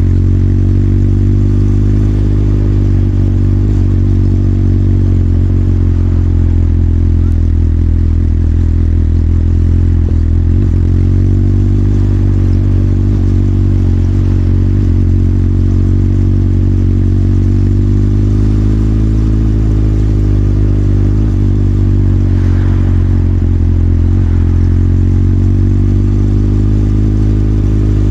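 Motorcycle engine running steadily at low revs, its pitch rising and falling gently with small changes in throttle.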